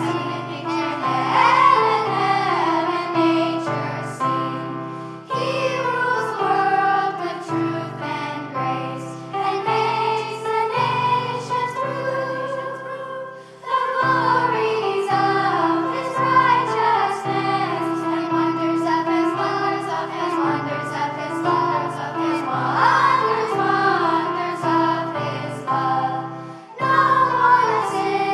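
Children's choir singing a song with instrumental accompaniment, the voices carrying a melody over a steady, stepping bass line.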